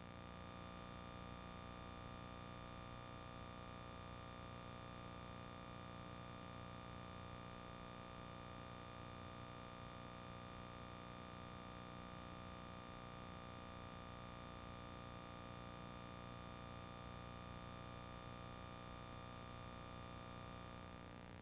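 Faint steady electrical hum and hiss, with several fixed tones held at an unchanging level and nothing else happening.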